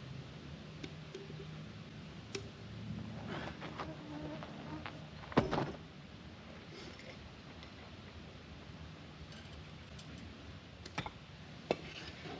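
Flying insects buzzing close by with a low hum. A few sharp knocks cut in, the loudest about five seconds in and two more near the end.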